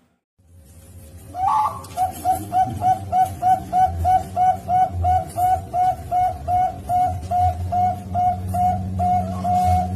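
Zebra dove (Bangkok-type perkutut) singing. After a brief silence, a rising opening note comes about a second in, then a long, even series of short coos at about three a second.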